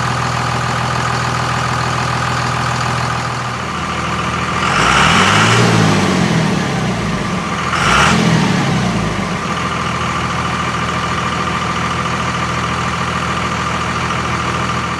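Dodge Ram pickup truck engine idling steadily, revved up and back down twice, about five and eight seconds in.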